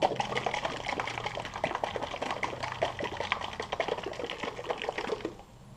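Foam applicator pad, wet with plastic dressing, rubbed over a textured plastic truck bed rail: a dense, irregular wet crackling that stops about five seconds in.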